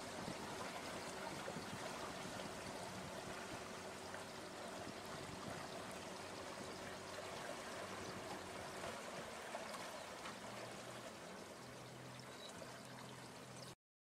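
Steady rush of running water, with a faint low steady hum underneath. It softens slightly near the end and cuts off.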